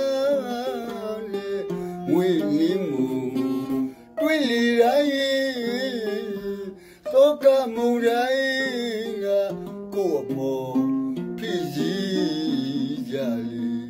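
A man singing a Burmese song with a wavering vibrato, accompanied by his own plucked mandolin, with short breaks between sung phrases about four and seven seconds in.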